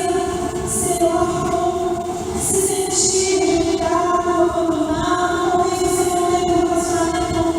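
Church choir singing a Christmas cantata song, holding long sustained notes that change every second or two.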